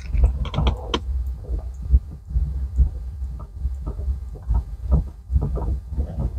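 Irregular low thumping and rustling from a clip-on microphone rubbing against a sweater while the gear knob is twisted back onto the shift lever, with a few light clicks mixed in.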